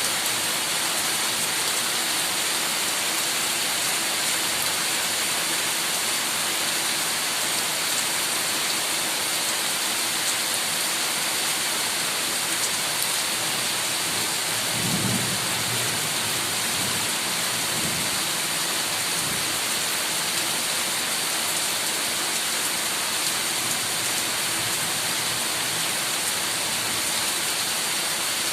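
Heavy rain falling steadily in a dense, even hiss. About halfway through, a low rumble of thunder swells up twice over a few seconds, then fades back into the rain.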